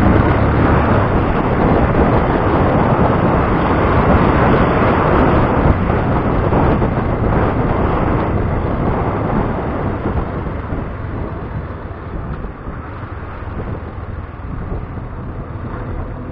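Wind noise on the camera microphone of a moving Yamaha FZ-S motorcycle, mixed with the bike's engine and the traffic around it. It grows quieter in the second half.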